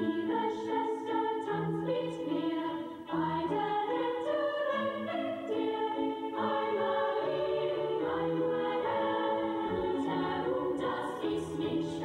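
Choral music: a choir singing slow, held chords.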